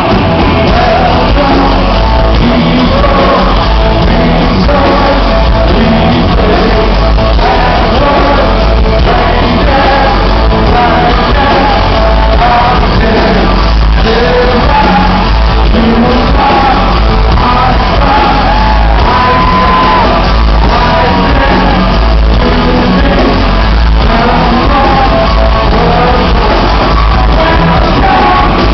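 Live rock band playing loud, with a male singer over electric bass, guitar and drums.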